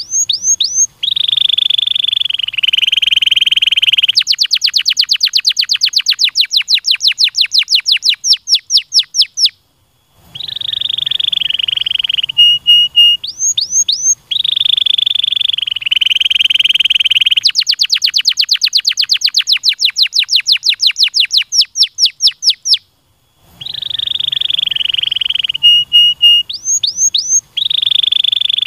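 Canary singing loudly: a long rolling trill, then a rapid run of short falling whistled notes, about five a second, broken by brief pauses. The same song phrase comes round about every thirteen seconds.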